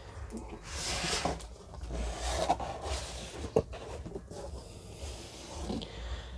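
Cardboard rubbing and scraping as a boxed item is slid out of a cardboard shipping carton, in uneven swells with a few light knocks partway through.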